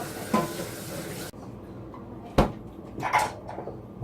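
Tap water running into a sink, shut off abruptly about a second in, followed by a single sharp knock and some lighter clatter of kitchenware.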